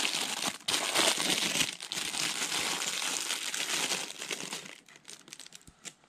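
Clear plastic bag crinkling as it is pulled open by hand, dying down after about four seconds to a few faint clicks.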